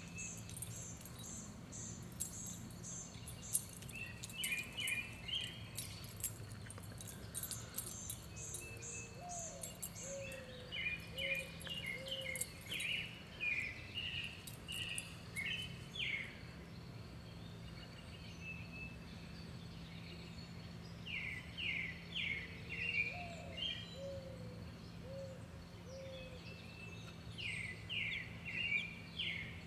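Wild birds singing outdoors: several songbirds chirping in repeated short phrases, with fast high trills in the first few seconds, and a lower call of four notes heard twice, all over a steady low hum.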